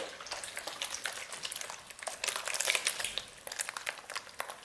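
Raw liver being worked by hand in a plastic bowl with vinegar for washing: a run of irregular wet crackles and small clicks.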